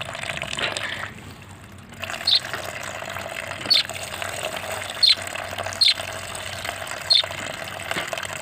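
Steady running, trickling water. From about two seconds in, a small bird gives five short, high chirps, each dropping slightly in pitch.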